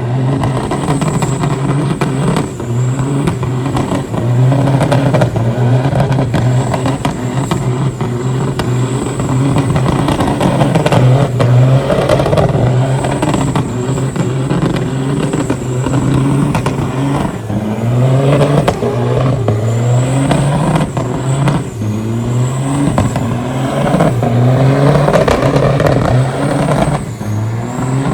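Semi truck doing a burnout: its diesel engine revs up and falls back over and over, with a thin high whine above it.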